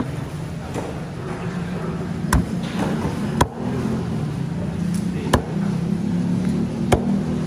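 A fish cutter's broad knife knocking sharply on a thick wooden chopping block four times, a second or two apart, while a large trevally fillet is cut. A steady low hum runs underneath.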